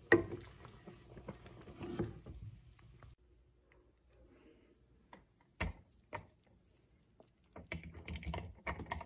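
A wooden spoon knocks and scrapes in a metal pot of boiled chickpeas over a low background hum, which stops about three seconds in. After a few scattered knocks, cooked chickpeas pour from a bowl into an empty plastic food-processor bowl near the end, making a clattering patter.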